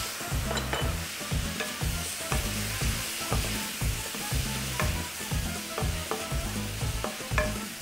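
Tempeh and onion sizzling in a frying pan with freshly added teriyaki and soy sauce, stirred with a utensil that clicks and scrapes against the pan.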